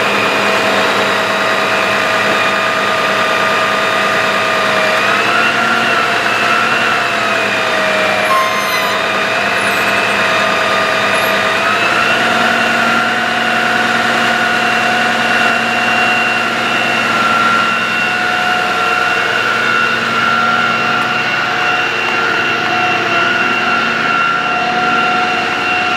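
Bucket truck engine running with the PTO engaged, driving the ETI boom's hydraulic pump, which gives a steady whine while the boom is operated. The whine shifts pitch a few times, stepping up about five seconds in and again about twelve seconds in.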